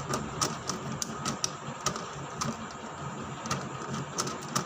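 Hard plastic clicks and clacks of a QiYi QiHeng S megaminx being turned by hand, irregular, a few a second. The puzzle is dry out of the box, with almost no lubricant.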